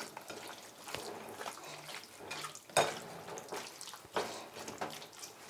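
Wet kitchen handling sounds: irregular small splashes, squelches and clicks, with one sharper knock about three seconds in.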